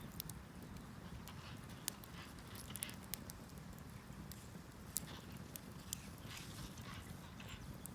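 Firewood burning under an iron cauldron, crackling with irregular sharp pops over a steady low rumble.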